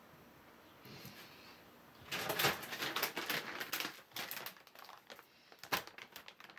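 Plastic bag of dry cat food crinkling and rustling as it is handled, dense crackling for about two seconds, then scattered crackles and a sharper tap near the end.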